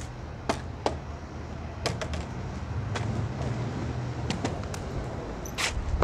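Skateboard wheels rolling on a concrete deck: a low rumble that grows as the board passes close, with sharp clicks and knocks scattered through, the loudest about five and a half seconds in.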